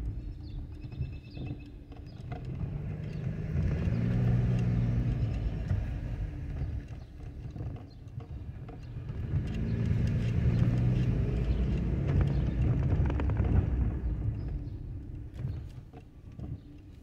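Car engine and road noise heard from inside the cabin while driving slowly along a street. The low engine note swells twice as the car picks up speed, then eases off.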